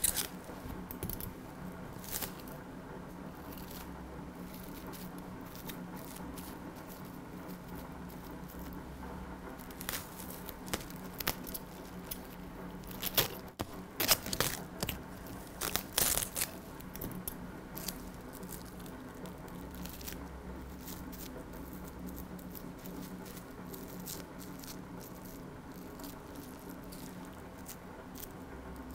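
Plastic cling film crinkling and tearing in scattered crackles as it is smoothed onto a face, busiest around the middle, over a steady low hum.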